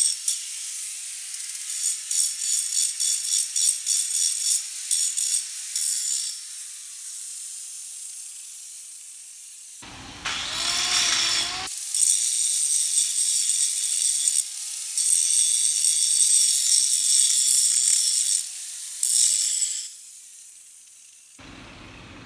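Grinder grinding steel, cutting out a crack in a hydraulic cylinder's end for welding: a hissing rasp in repeated short strokes, with the motor's whine wavering under load. It eases off briefly about halfway through, then stops a couple of seconds before the end.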